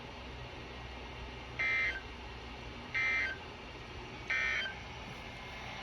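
Three short bursts of EAS SAME data tone, the end-of-message signal that closes a NOAA Weather Radio alert, each about half a second long and spaced a little over a second apart, over a low steady radio hum.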